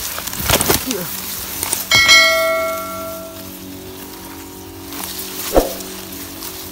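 Subscribe-button notification sound effect: a bright bell chime about two seconds in that rings out and fades over a second or so. Brushing swishes from moving through cane leaves come before it and once more near the end, over a steady hum.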